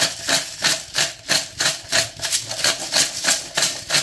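Hand-twisted pepper mill grinding whole peppercorns, a rhythmic crunching rasp about three times a second, one burst with each twist.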